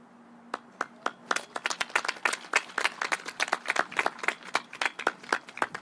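A few people clapping close by: sharp, separate claps that start about half a second in and thicken into steady applause of several pairs of hands until near the end.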